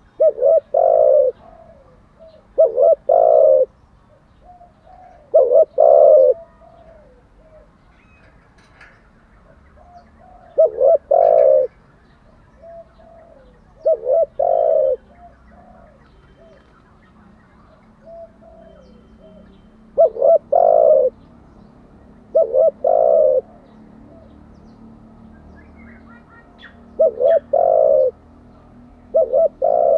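Spotted dove cooing: nine short low coo phrases of a few quick notes each, coming every two to five seconds, with longer gaps around 7 to 10 seconds and 16 to 19 seconds in.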